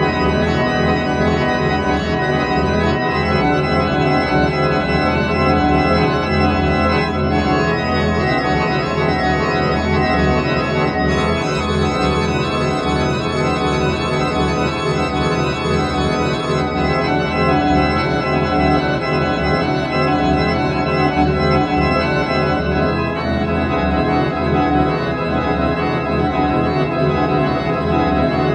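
Slow music of long-held organ chords, steady in loudness, with the chord shifting every several seconds.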